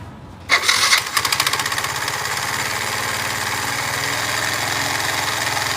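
Yamaha scooter engine started with the belt-drive transmission cover off, catching about half a second in and settling into a steady fast idle. The drive is noisy, which the mechanic takes for a loose screw inside the transmission.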